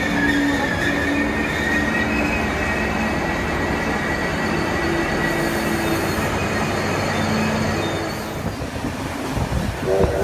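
Hunter railcar diesel multiple unit running along the platform: a steady rumble of engine and wheels, with a thin wheel squeal high above it. Right at the end a steam locomotive's whistle begins.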